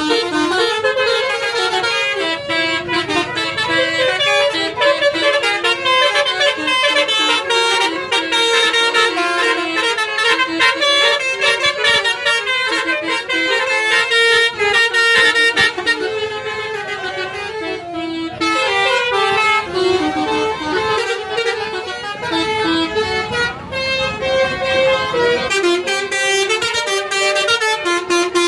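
A bus's 'telolet basuri' musical horn set playing a fast tune of loud, sustained tones, the notes changing several times a second.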